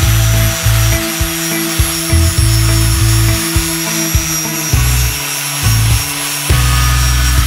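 Background music with a pulsing bassline, over the steady whine of an angle grinder with an abrasive disc grinding the edge of a metal clutch pedal.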